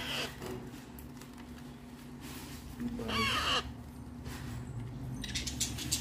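Parrot chick giving raspy, crow-like begging calls while being hand-fed formula from a dropper. There is a short call at the start, a louder one about three seconds in, and more near the end.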